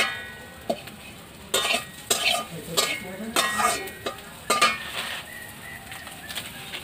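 A metal spatula scraping and stirring in a karai as spices and a bay leaf fry in hot oil, with a light sizzle. It opens with a ringing clang of metal on metal, then several scraping strokes.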